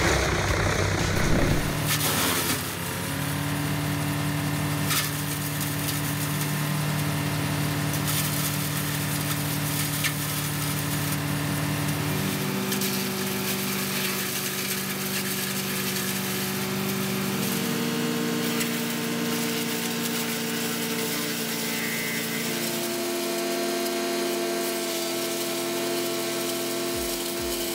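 Wood chipper engine running steadily, its pitch changing abruptly a few times.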